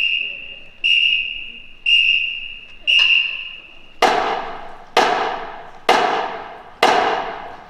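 Four even blasts on a marching band whistle, about a second apart, as a count-off. They are followed by four evenly spaced percussion crashes that each ring and fade, keeping the same tempo, leading into the band's entrance.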